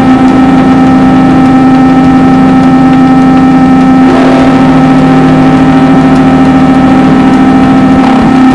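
Drone metal: a loud, heavily distorted, sustained low drone held on one pitch, with the texture shifting about four seconds in and again near the end.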